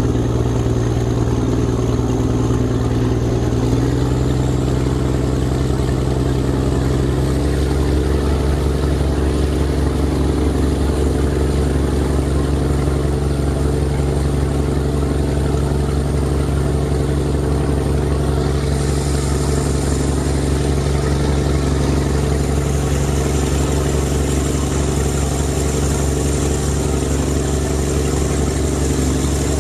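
A boat's engine running steadily, heard from on board. Its note shifts twice in the first several seconds, then holds steady.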